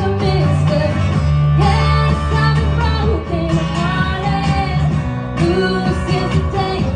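Live pub band: a woman singing into a microphone over a strummed guitar, amplified through a PA.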